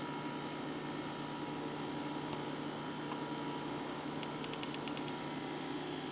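Sony AV-3400 reel-to-reel video recorder running in record, its spinning head drum and tape transport giving a steady hum with hiss. About four seconds in comes a brief run of faint rapid ticks.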